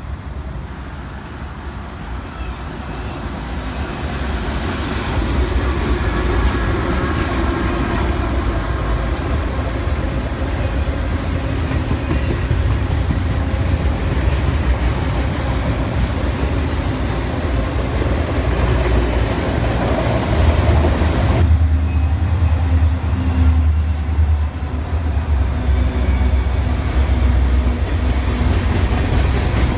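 A CSX freight train of autorack cars rolls past with wheels clattering on the rails, growing louder over the first few seconds as it nears. About twenty seconds in, the sound changes abruptly to Buffalo & Pittsburgh diesel-electric locomotives running past with a heavy low engine rumble.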